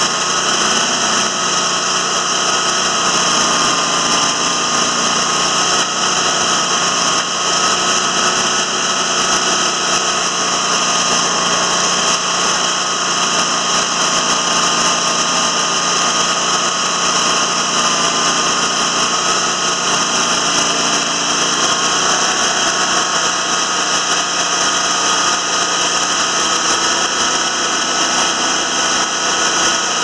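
TimberKing 2000 band sawmill's engine and hydraulics running steadily, with a slightly wavering whine over the engine noise, as the hydraulic levers are worked to turn the pine cant over.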